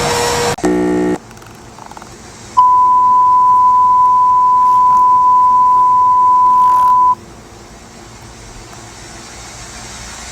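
Synthesized emergency-alert tones: a short buzzy tone about half a second long, then after a brief gap a single steady beep near 1 kHz held for about four and a half seconds, then low hiss.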